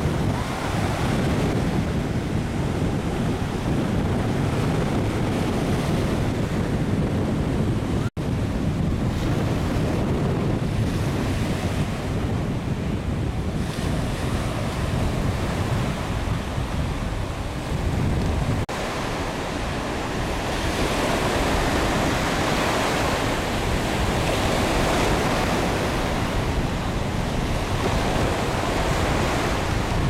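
Surf breaking and washing up a sandy beach, with wind buffeting the microphone. The sound drops out for an instant about eight seconds in.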